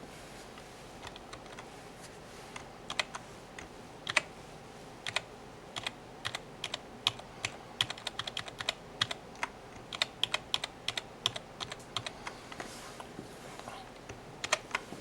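Keys of a Rizum G-FACTOR Z30 aluminium gaming keyboard being pressed: irregular sharp key clicks, a few at first, then a quicker run of presses through the middle, thinning out again near the end.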